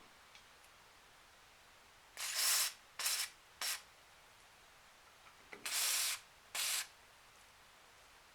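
Short bursts of spray hissing, five in all: three close together, then a pause, then two more.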